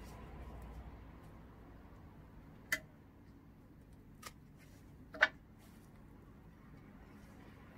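Pruning shears snipping through sunflower stems: three sharp clicks, the loudest and doubled one a little past halfway.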